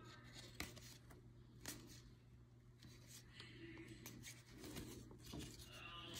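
Faint soft ticks and rubbing of paper trading cards as baseball cards are slid one at a time off a hand-held stack, over a low steady hum.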